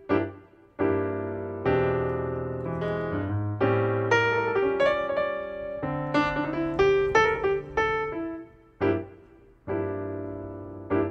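Background piano music: a gentle melody over chords, in phrases with short breaks between them.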